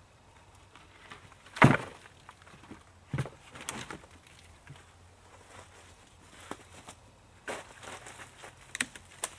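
Dry branches and sticks knocking and clattering against each other as they are laid onto a wooden lean-to shelter frame: a few sharp knocks, the loudest about one and a half seconds in, with more near the end.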